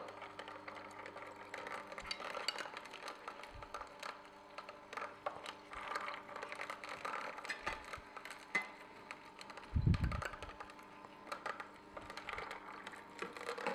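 Omega Sana EUJ-707 slow auger juicer running, its auger crushing soaked almonds with irregular crackling and clicking over a low steady hum. A dull thump comes about ten seconds in.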